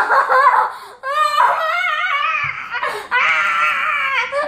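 A boy's wordless, high-pitched squealing cries: a short burst, then two long wavering wails, half crying and half laughing with excitement at pulling rare cards.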